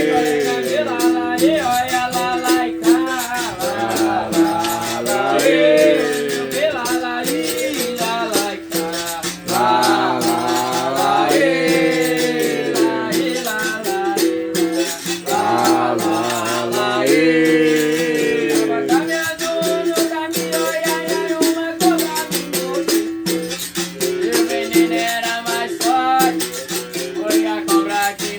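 Berimbau being played: rapid strikes on its steel string over a steady low note, with a caxixi shaker rattling along. The tone swells and bends up and down at times.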